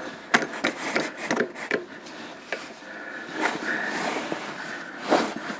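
Tube-flaring tool and tubing being handled: irregular metal clicks and knocks with stretches of scraping and rubbing as the tube is set in the flaring bar, and one louder knock near the end.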